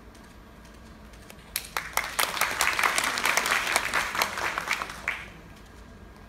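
Audience applauding at the end of a piano performance: the clapping starts about one and a half seconds in, swells, and dies away after about three and a half seconds.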